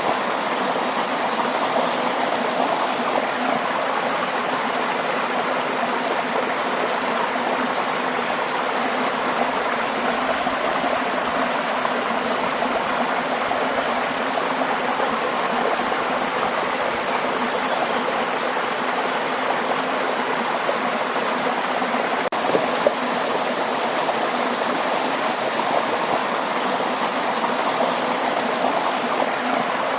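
Waterfall: water falling and splashing in a steady, unbroken rush, with one brief click about two-thirds of the way through.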